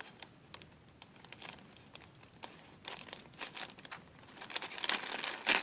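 Plastic toy packaging crinkling as it is handled and opened by hand. The crackles are sparse and faint at first, then grow denser and louder near the end.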